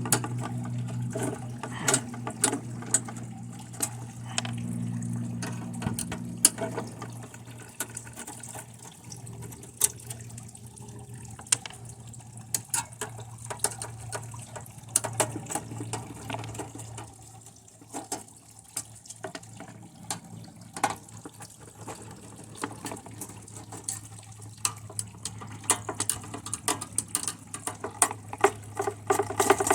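Crackling and sizzling of a TV circuit board being burned with high current from a lead-acid battery: irregular sharp pops and snaps of arcing over a low hiss. A steady low hum runs underneath, stronger in the first six seconds or so.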